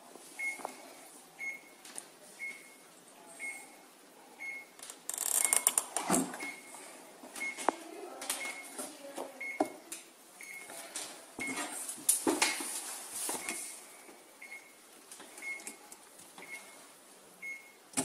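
Samsung RSH1 fridge freezer's electronic beep, a short high tone repeating at a steady pace, with scattered knocks and rustles from the door and shelves being handled.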